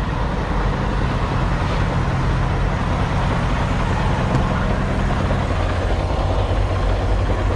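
Diesel semi-truck engine idling steadily, a low even hum with a hiss of air and traffic noise over it.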